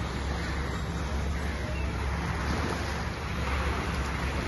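Waterfront ambience: water washing against the shore and jetty posts, with wind on the microphone and a low steady drone underneath.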